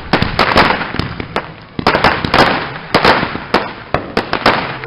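Consumer fireworks going off: a rapid, irregular string of sharp bangs and crackles, several a second, some louder than others.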